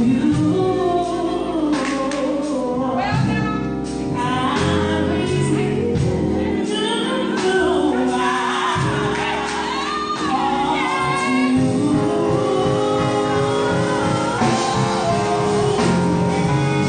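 Live gospel-style singing over instrumental backing with held bass notes, the melody gliding up and down without a break, in a large hall.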